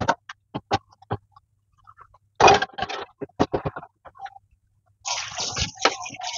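Plates and bowls knocking and clattering against each other and the sink as they are handled and scrubbed during dishwashing. Near the end, water starts splashing in the sink.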